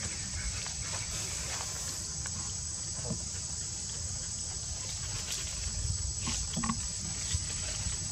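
Steady high-pitched drone of insects, with a low rumble underneath and a few short ticks in the second half.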